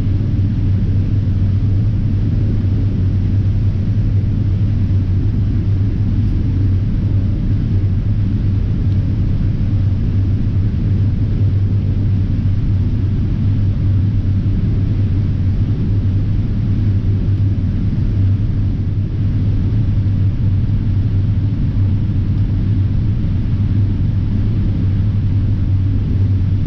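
John Deere X9 1000 combine running under load while harvesting corn, heard from inside the cab: a steady, loud low drone of engine and machinery with a strong low hum.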